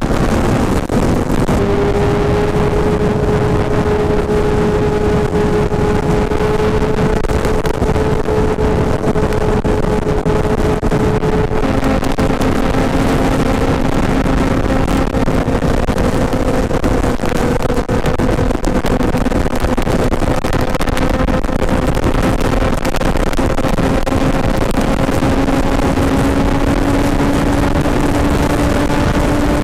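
Motorcycle cruising at motorway speed: a steady engine hum under heavy wind and road rush. The engine note shifts slightly twice and edges up slowly near the end.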